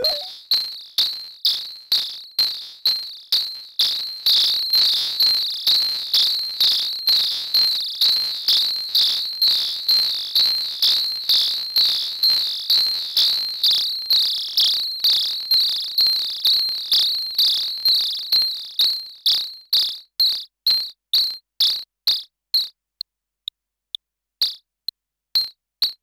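Behringer System 100 modular analog synthesizer patched to imitate locusts: a high, insect-like chirp repeating about two to three times a second. After about twenty seconds the chirps grow shorter and sparser.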